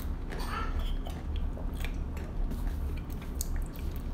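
A person gulping water from a plastic water bottle, with scattered clicks and crackles from the bottle and mouth.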